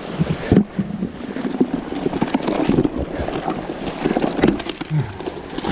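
Creek water splashing and sloshing as buckets of trout are handled while wading, with irregular knocks and rubbing on the camera microphone.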